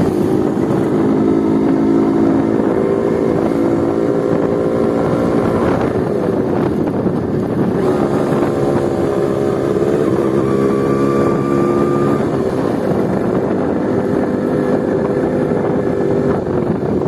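Honda H100S two-stroke motorcycle engine running loud through an open exhaust with the dB killer removed, revving while riding. Its pitch climbs and falls several times as the throttle is opened and eased, with a drop about six seconds in and another about twelve seconds in.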